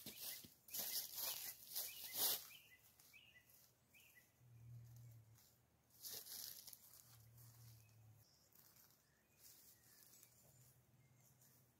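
Footsteps crunching on dry fallen leaves, a quick run of steps over the first two and a half seconds, then a short rustle about six seconds in as moss is pulled off a tree trunk. Faint bird chirps.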